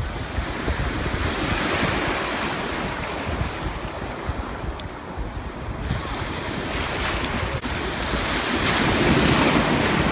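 Ocean surf washing and breaking in the shallows, with wind buffeting the microphone. It swells louder near the end as a wave breaks close by.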